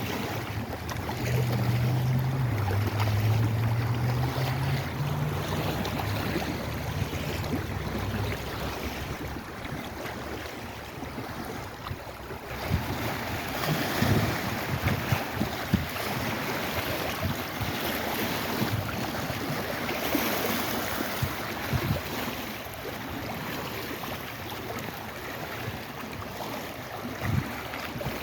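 Lake Erie water washing in waves, with wind. A low hum that wavers in pitch runs through the first eight seconds or so, and a few short slaps of water come in the second half.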